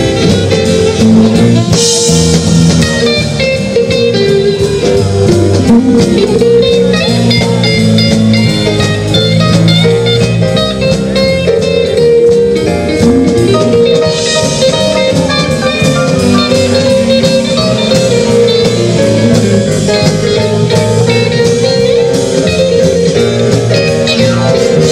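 Live big band playing: saxophones, trumpets and trombones over a drum kit, with brighter cymbal swells about two seconds in and again around fourteen seconds.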